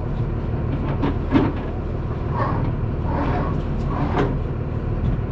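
Boat engine running steadily with a low rumble, with a few scattered clicks and knocks over it.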